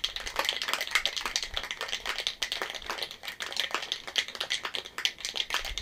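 Ice cubes rattling hard inside a cocktail shaker being shaken vigorously, a fast, steady clatter of sharp knocks.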